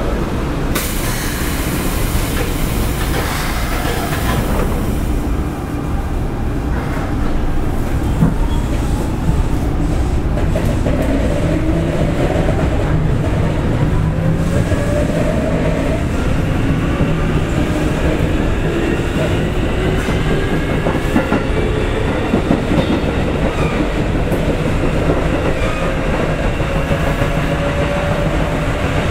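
Keikyu 800 series electric train running, heard from inside motor car DeHa 812-2. The field-chopper-controlled traction motors and gears whine, with several tones slowly rising in pitch as the train gathers speed. Under the whine are a steady rumble and the clack of the wheels over rail joints.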